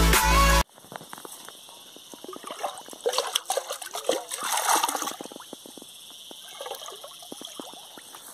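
Water splashing and pouring out of a round black pan as it is rinsed and emptied, with scattered small clicks and knocks, loudest a few seconds in. A burst of electronic music cuts off abruptly about half a second in.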